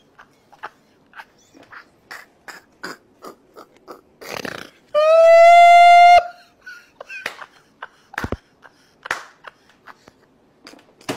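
A man laughing in short breathy bursts, a few a second. About five seconds in, a loud, steady high-pitched note sounds for just over a second and cuts off abruptly.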